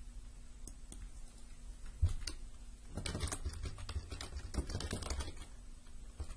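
Computer keyboard being typed on: a few scattered keystroke clicks and a sharper knock about two seconds in, then a fast run of keystrokes for about two and a half seconds as a phrase is typed.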